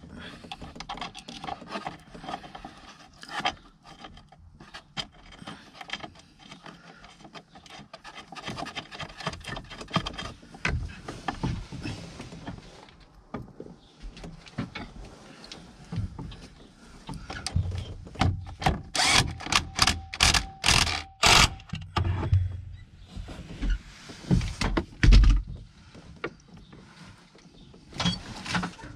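Wrench working the nut on the bottom mount of a gas cylinder (gas strut): scattered metal clicks, scrapes and rubbing as the tool is handled and turned. A quick run of sharp clicks comes a little past halfway.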